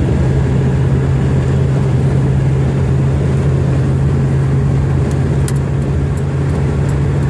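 1979 Buick Regal V8 cruising at about 55 mph, heard from inside the cabin: a steady low drone of engine, tyres and wind.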